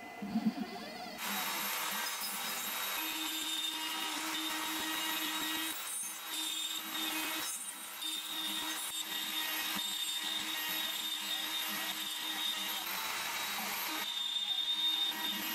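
CNC router spindle switches on about a second in and runs steadily while a 6 mm end mill cuts a circular groove into end-grain wood at a 3 mm depth of pass.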